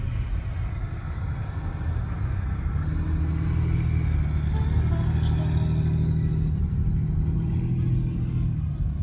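Motor vehicle engine running with a low, steady rumble.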